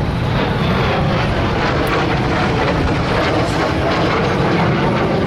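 T-33 Shooting Star jet trainer flying past low, its turbojet engine making loud, steady jet noise.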